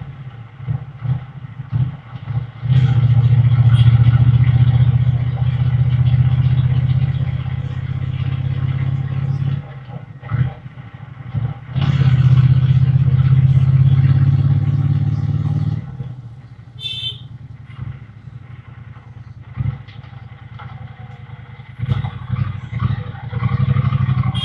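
Triumph Bonneville T120's 1200 cc parallel-twin engine and exhaust under way: it pulls hard for several seconds, drops off briefly twice around ten seconds in, pulls hard again, then runs on lighter throttle. A short high-pitched beep sounds partway through that quieter stretch.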